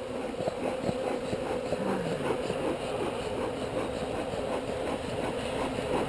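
Honeybees buzzing in large numbers around an opened hive: a steady hum with the flickering buzz of individual bees flying close by.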